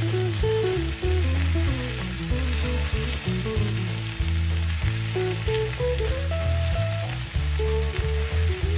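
Spinach, onion and red pepper sizzling as they fry in olive oil in a frying pan, stirred with a wooden spatula. Background music with a bass line plays over it.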